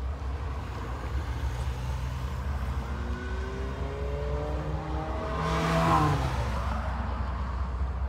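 A road vehicle driving past close by. Its sound grows louder to a peak about six seconds in, then drops in pitch as it moves away, over a steady low rumble.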